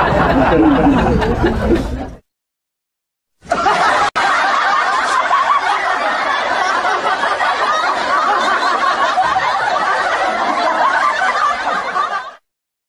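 Recorded laughter in two edited pieces: a short stretch of laughing that cuts off about two seconds in, then after a second of dead silence a longer, dense stretch of laughter that stops abruptly shortly before the end.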